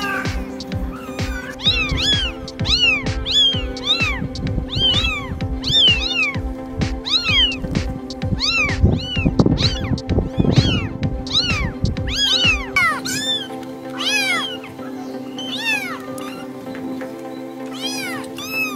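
Kittens mewing over and over in short, high calls that rise and fall, about two a second, thinning out after about 13 seconds. Background music with a steady beat plays underneath; its beat drops out about 13 seconds in.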